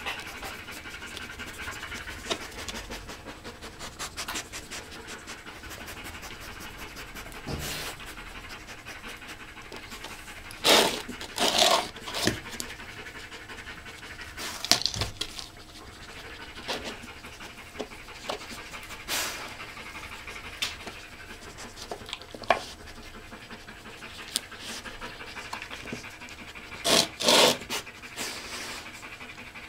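Belgian Tervuren shepherd dog panting steadily while pawing and nosing a wooden puzzle feeder. Short knocks and scrapes of the wooden board come through several times, loudest about eleven seconds in and again near the end.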